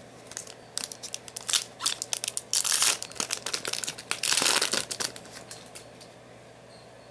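Foil Yu-Gi-Oh booster pack being crinkled and torn open: a run of quick crackles and rustles with two longer rips, about two and a half and four and a half seconds in, stopping about five seconds in.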